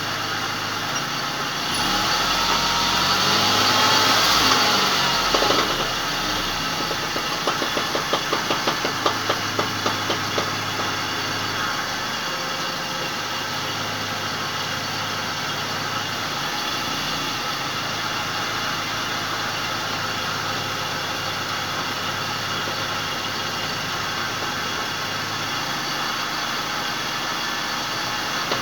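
Car engine running with the driven wheels spinning in the air; it revs briefly, then a rapid ratchet-like knocking from the driveline sets in for a few seconds and fades back to steady running. The owner suspects a failed right drive shaft (CV joint).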